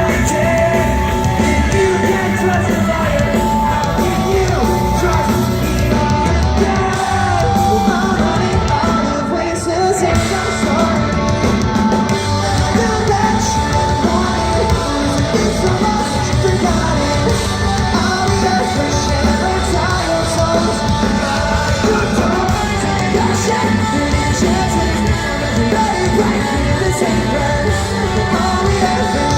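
Pop-punk band playing live and loud, with a lead vocalist singing and yelling over the band.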